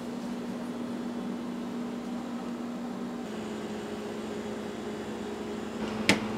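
Steady electrical room hum with a constant low tone, like a fan or air conditioner running. The hum shifts slightly about halfway through, and a single sharp click comes near the end.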